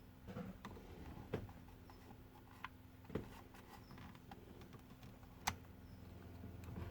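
A few light clicks and taps from handling the headlight switch and its wiring, the sharpest about five and a half seconds in, over a faint steady hum.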